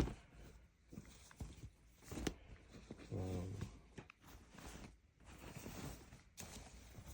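Shirt fabric and plastic packaging rustling and crinkling as a garment is handled and folded, with a few sharper crinkles spread through. About three seconds in comes a brief low murmur of a man's voice.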